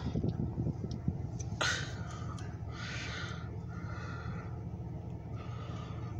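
Steady low hum of an idling diesel locomotive, with faint voices of people talking.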